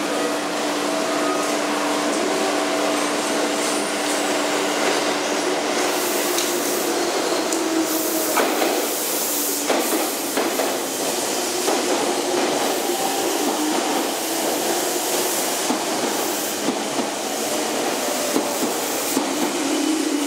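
Meitetsu 1000/1200 series electric train at a station platform. It hums steadily while standing, gives two sharp clicks about 8 and 10 seconds in, then starts pulling out with a wavering motor tone and running noise that rises near the end.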